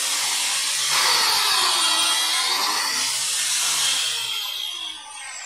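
Makita PJ7000J biscuit joiner running at full speed, its blade plunging into a wood panel to cut a biscuit slot. Near the end the motor winds down with a falling whine.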